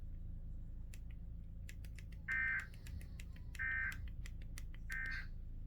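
Emergency Alert System end-of-message code: three short bursts of buzzy digital data tone, about a second apart, signalling the end of the alert. Faint clicks and a low hum run underneath.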